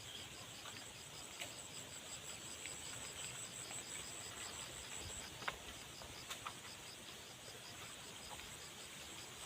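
Insects chirring in the surrounding vegetation: one keeps a rapid pulsed high call going, while a second, higher steady trill stops about halfway through. A few faint sharp clicks are heard, the loudest a little past the middle.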